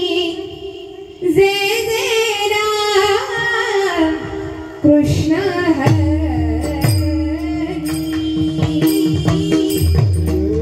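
Marathi devotional kirtan singing: a young woman's voice sings long, held, ornamented lines over a steady drone note. About five seconds in, small hand cymbals (taal) and a low drum come in with a beat beneath the singing.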